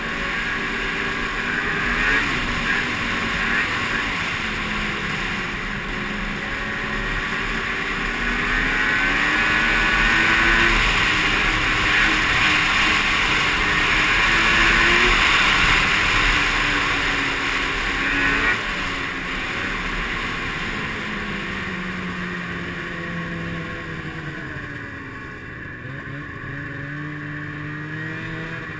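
Snowmobile engine running on the move, its pitch rising and falling with the throttle. It is loudest around the middle, then eases off to a lower, quieter pitch near the end.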